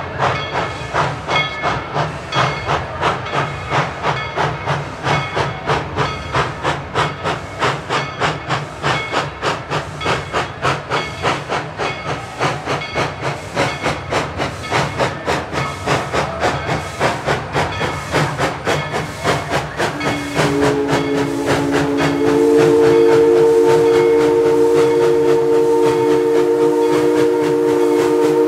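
Steam locomotive working, its exhaust chuffing in a steady rhythm of about three beats a second. About twenty seconds in, its chime whistle opens into one long, loud multi-note blast.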